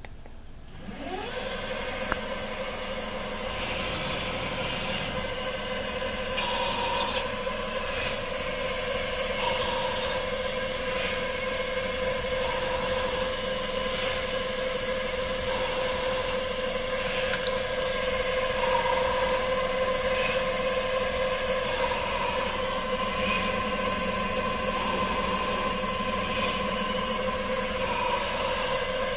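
Small CNC lathe spindle spinning up about a second in, its whine rising in pitch, then running at a steady pitch. Over it, a short burst of axis-motor and cutting noise comes about every three seconds as the tool makes repeated threading passes on the brass part.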